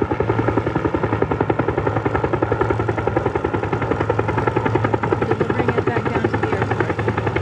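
Helicopter flying overhead with an airplane slung beneath it on a long line, its main rotor chopping with a rapid, even beat.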